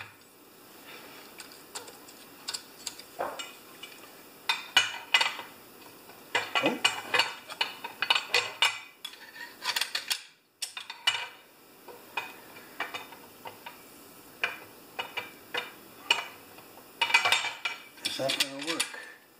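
The saw chain of a Homelite XP-1020 chainsaw being pulled around its bar by hand, the metal links clicking and rattling over the bar and drive sprocket in irregular bursts. The chain is being checked to see that it runs freely around the bar.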